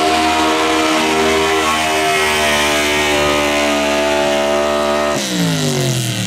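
Diesel pickup truck engine held at high revs under full load while dragging a weight sled, its pitch slowly sagging as the sled's weight bears down. About five seconds in, the revs drop away sharply as the driver lifts off at the end of the pull.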